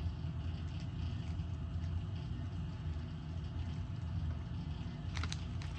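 Steady low background hum, with a short cluster of clicks about five seconds in.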